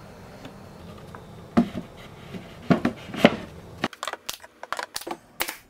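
A few knocks from handling, then from about four seconds in a pneumatic brad nailer fires in quick succession, about four sharp shots a second, tacking plywood strips to a plywood panel.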